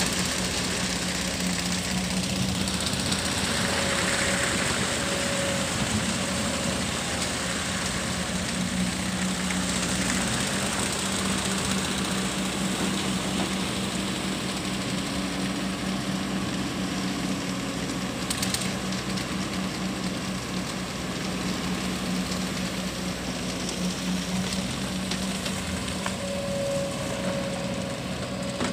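Kobelco hydraulic excavator's diesel engine running steadily with a low drone as the machine digs and lifts wet mud with its bucket.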